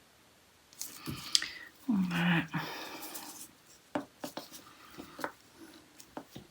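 Small clicks, taps and brief rustles of nail-art tools and bottles being handled, with a short vocal sound, like a hum, about two seconds in.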